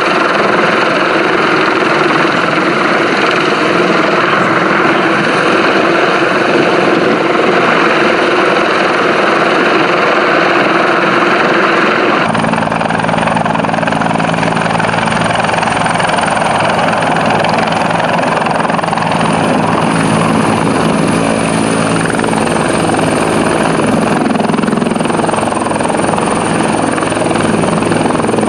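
Rescue helicopter hovering: a steady, loud rush of rotor and turbine noise. About twelve seconds in the sound cuts to closer range, with a steady low hum and a high turbine whine as the helicopter hangs low and settles onto the tarmac with its rotor turning.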